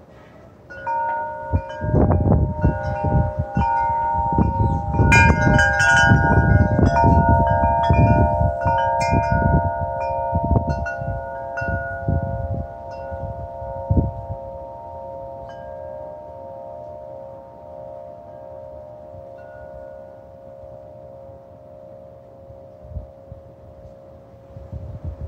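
Wind chimes struck over and over by a gust of wind, their several tones overlapping, under the low rumble of the gust. The gust dies down about halfway through, and the chimes ring on and slowly fade until a new gust begins at the very end.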